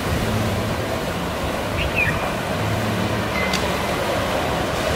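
Ocean surf washing onto a sandy beach, a steady hiss, with a faint low hum underneath and a couple of short, faint high chirps about two and three and a half seconds in.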